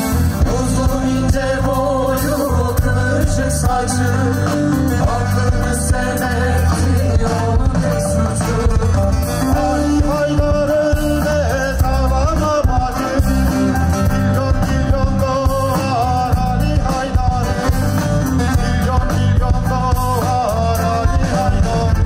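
Live band playing a song with a singer, over strong bass and a steady beat.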